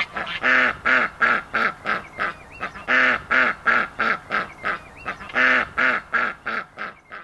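A flock of ducks and geese calling: short quacks and honks repeated several times a second, overlapping, with louder runs throughout.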